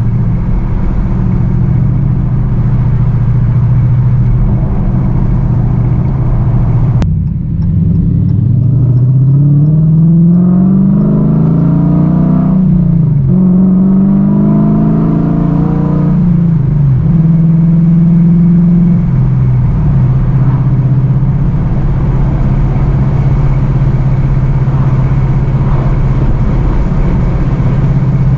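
V8 car engine running steadily, then accelerating with its pitch rising, dropping back at a gear change, and rising again before it settles into a steady cruise.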